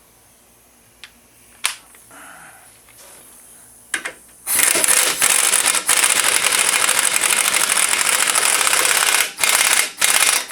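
A few sharp metallic clicks, then an impact wrench hammering hard in one long run of about five seconds, breaking into short stop-start bursts near the end.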